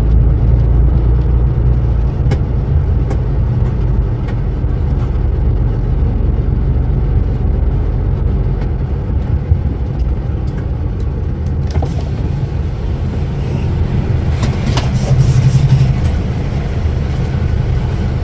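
Truck engine running, heard from inside the cab as the truck moves slowly; a steady low drone that grows louder for a moment near the end.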